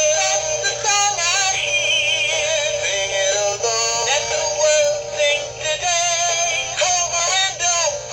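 Gemmy animatronic singing cardinal pair playing a song in its song mode: a sung melody with backing music from the toy's built-in speaker, thin-sounding with almost no bass.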